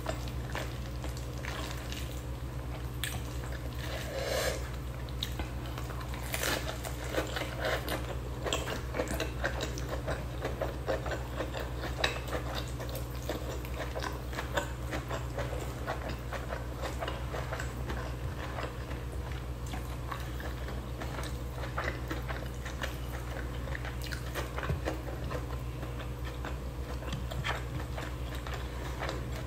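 A person chewing a mouthful of chicken and rice close to the microphone, with many small wet clicks and smacks over a steady low hum.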